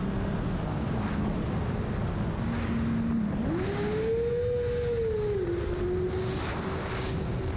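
Honda CBR600RR inline-four engine running at speed inside a road tunnel, under steady wind and road rush. A little past three seconds in, the engine note climbs sharply, holds for about two seconds, then drops back to a lower steady pitch.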